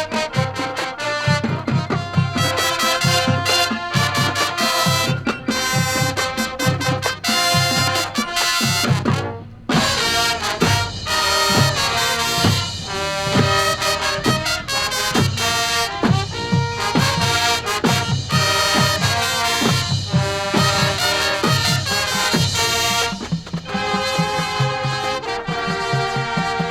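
High school marching band playing its field show: brass section chords over regular drum beats, with a brief break about nine seconds in.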